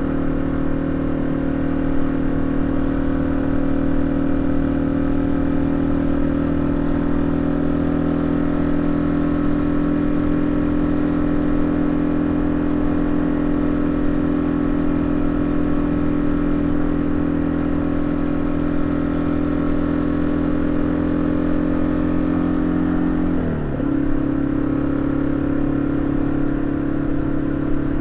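Yamaha XT225 Serow's single-cylinder four-stroke engine running steadily under way. About three-quarters of the way through, the engine note dips briefly and drops in pitch, then settles at a steady note again.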